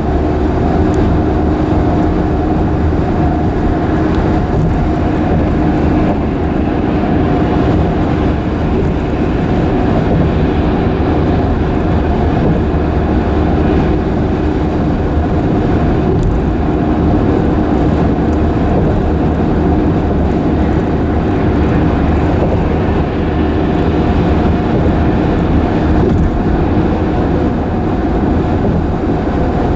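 Road bridge vibrating under passing traffic: a steady low rumble with a constant droning hum over it.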